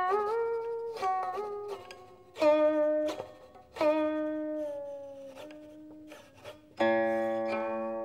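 Solo guqin, the seven-string Chinese zither, played note by note: plucked tones whose pitch slides up or down under the stopping hand, then a louder note about seven seconds in that rings on and slowly fades.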